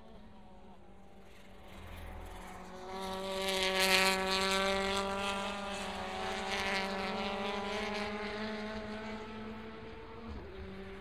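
WTCC touring cars with 1.6-litre turbocharged four-cylinder engines, a Citroën C-Elysée in the lead, passing at speed through a corner: the engine note swells about two seconds in, is loudest around four seconds, and fades over the next few seconds as they pull away. Near the end another car's engine comes in as it approaches.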